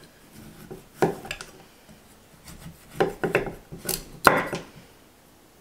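Large chef's knife sawing and chopping through a tough horseradish root on a wooden cutting board, with sharp knocks of the blade on the board about a second in and several more between three and four and a half seconds in.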